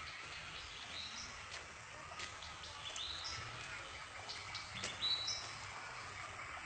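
Birds calling over a faint steady hiss: a short high call that steps up to a higher note, repeated about every two seconds, with a few fainter chirps between.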